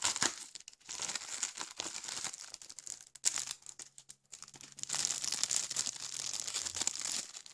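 Packaging crinkling and rustling in the hands as the small parcel holding the adapter is opened, in uneven crackly bursts.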